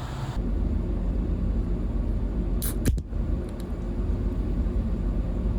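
Steady low engine rumble of a vehicle, with a couple of sharp clicks a little before the midpoint.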